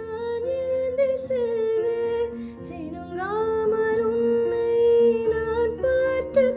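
Background music: a song whose sung melody holds long notes and slides between them, over instrumental accompaniment.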